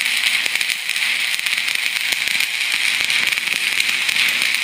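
Stick-welding arc on a 6013 electrode laying a buildup bead on a snowmobile ski's steel wear bar: a steady crackling hiss dense with small pops.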